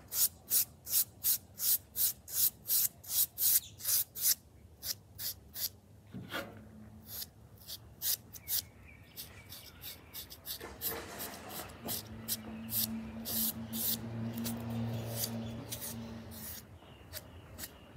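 A small paintbrush stroking paint along the edges of a mini surfboard: quick, even brushing strokes about three a second for the first few seconds, then slower, sparser strokes. A low steady hum comes in about twelve seconds in and stops a few seconds later.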